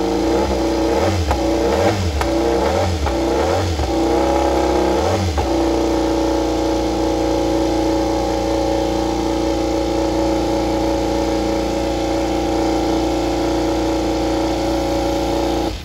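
GasGas RC16 MotoGP bike's V4 race engine warming up on the stand. It is blipped about five times in quick succession in the first five seconds, then runs at a steady fast idle until it cuts off abruptly at the end.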